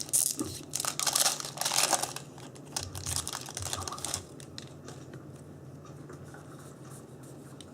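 Foil Yu-Gi-Oh booster pack wrapper crinkling and being torn open, a run of rustling and tearing for about the first four seconds, then much quieter.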